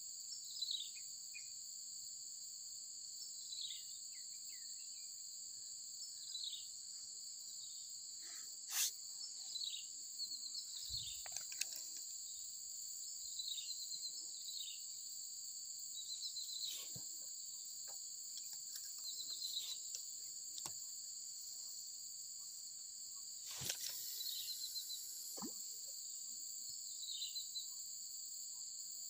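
Steady insect chorus, two continuous high-pitched drones, with short high chirps scattered through it. A few brief clicks and knocks of handling break in, one longer rustle about three quarters of the way through.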